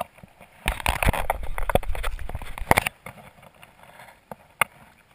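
Rumbling, rustling noise on an action camera's microphone, loud for about two seconds and then dying away, with a couple of sharp clicks near the end.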